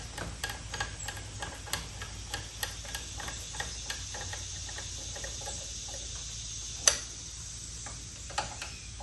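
Light, regular clicking, about three a second, thinning out later, with one sharper click about seven seconds in: a screwdriver working the screws on the carburetor of a 1980s 3 hp Gamefisher outboard motor.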